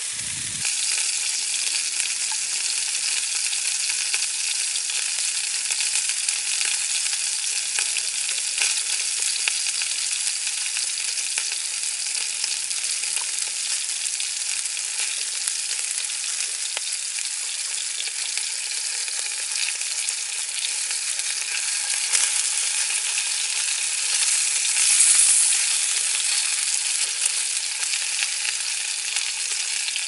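Minced-meat meatballs sizzling in a cast iron pan over a small wood fire: a steady frying hiss dotted with small pops and crackles, swelling louder for a moment about 25 seconds in.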